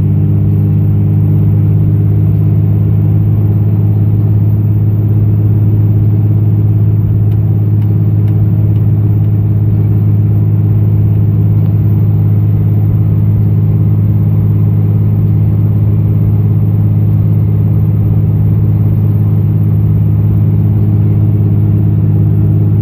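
Dodge Ram's 5.9 L Cummins diesel engine droning steadily as the truck cruises, heard from inside the cab. The pitch holds steady throughout, with no revving or shifting.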